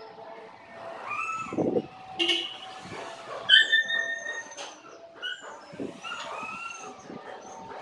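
A dog barking and yelping several times in short calls, the loudest about three and a half seconds in.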